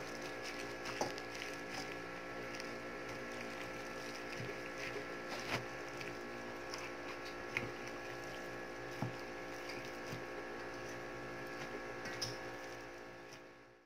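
Steady hum with several tones, with a few soft clicks and squishes from a ground-pork, onion and carrot filling being mixed in a bowl.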